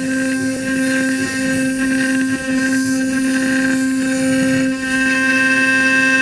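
CNC milling machine cutting an aluminium bar: a steady spindle whine with a noisy, rasping cutting sound over it that swells and dips as the end mill moves along the cut.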